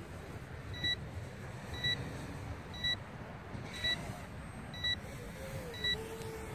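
Radio transmitter's flight timer beeping, short high beeps about once a second, signalling that the three-minute flight time is up. Wind rumbles on the microphone underneath.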